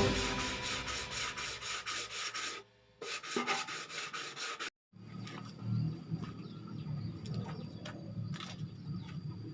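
Hand rubbing strokes on a motorcycle fuel tank's surface, a rasping scrub repeated over and over, broken twice by brief cuts.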